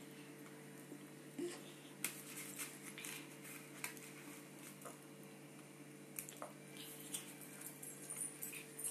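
Faint, scattered taps and clicks of a toddler's hand on a plastic plate and the food on it, over a steady low hum.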